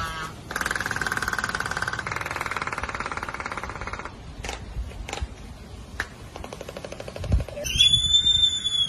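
A pair of Laysan albatrosses in their courtship dance: a fast, even clacking rattle of bills for about three and a half seconds, then a few single sharp bill clacks, and a high drawn-out call near the end.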